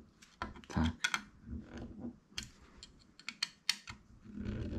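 Small screwdriver clicking and scraping against tiny screws and the metal parts of a scale-model car door as screws are driven in: a series of light, irregular clicks.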